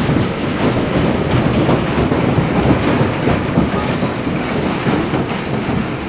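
Hailstones falling and striking hard surfaces: a steady, dense clatter of countless small ticks.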